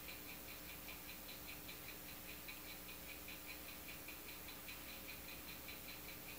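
Faint, rapid, even ticking, about five high-pitched ticks a second.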